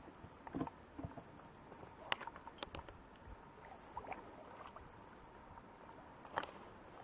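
Faint scattered knocks and rubbing as a wet magnet-fishing rope is handled and pulled in over a plastic sit-on kayak, with a few louder clicks spread through.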